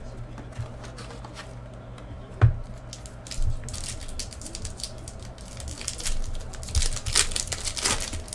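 A baseball card box and its pack being opened by hand: wrapper and cardboard crinkling and tearing. There is a sharp knock about two and a half seconds in, and the rustling grows busier in the second half.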